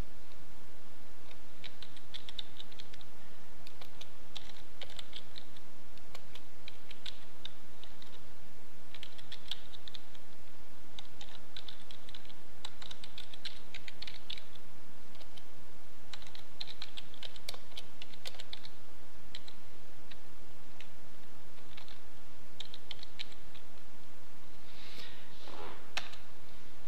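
Typing on a computer keyboard: runs of quick keystrokes in short bursts with pauses between them, as a command is entered. A brief louder sound comes near the end.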